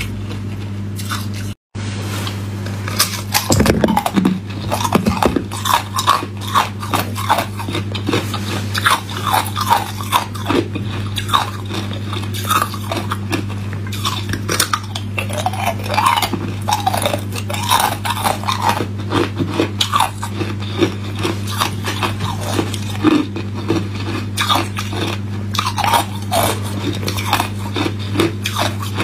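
Hard ice cubes being bitten from a clear plastic ice-cube tray and crunched between the teeth: a dense, irregular run of sharp cracks and crunches, over a steady low hum.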